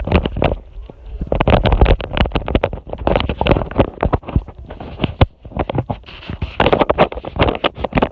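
Handling noise on a handheld camera's microphone as it is carried and moved: irregular knocks, rubbing and low thumps, with a rumbling sound like wind on the microphone.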